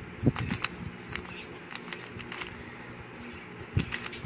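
Plastic clicking and clacking of a Rubik's Cube as its layers are turned by hand: a scatter of quick, sharp clicks at uneven intervals.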